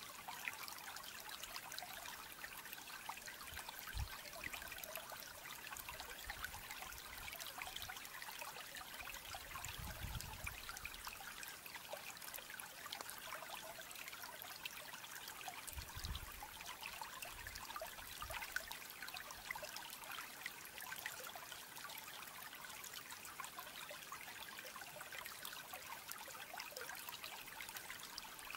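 A steady hiss like trickling water, with three soft low thumps a few seconds apart.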